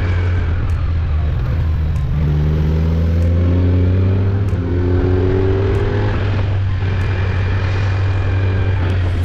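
Kawasaki Z900 inline-four motorcycle engine heard from the rider's seat, running steadily on the road. Between about two and six seconds in its pitch climbs twice as the bike accelerates through the gears, then settles to steady cruising.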